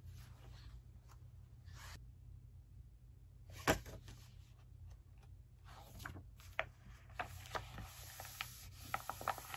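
Paper pages of a thick textbook rustling as they are flipped through by hand, with one sharp click a little under four seconds in. Near the end comes a longer stretch of page rustling with small crinkling ticks as the open book is pressed and smoothed flat.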